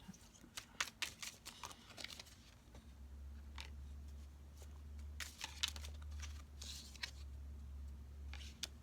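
A deck of Lenormand cards being handled and shuffled: faint, scattered soft clicks and rustles of card stock. A low steady hum comes in about three seconds in.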